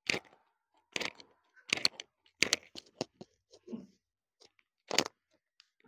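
A series of irregular light clicks and taps, about a dozen short sharp sounds with gaps between them and no steady rhythm.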